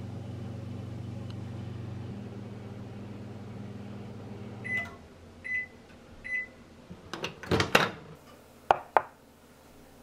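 Panasonic microwave oven running with a steady low hum that stops about five seconds in, followed by three short high beeps marking the end of the heating cycle. Then a loud clatter and two sharp knocks near the end.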